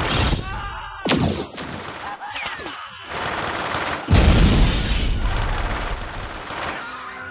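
Film battle sound effects: bursts of sci-fi laser gunfire, then a loud, deep explosion about four seconds in that dies away slowly.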